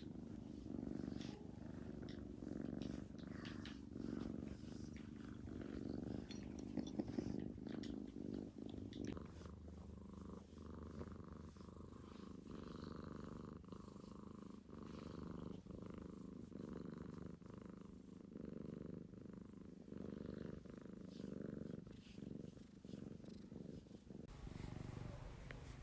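A domestic cat purring steadily, the purr swelling and fading in an even rhythm about once a second.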